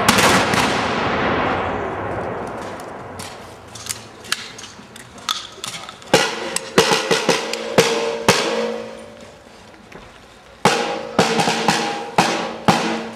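A volley of rifle fire echoing and dying away over the first two seconds or so. This is followed by a drum beaten in irregular strokes, its heads ringing after the heavier hits, in two clusters about four seconds apart.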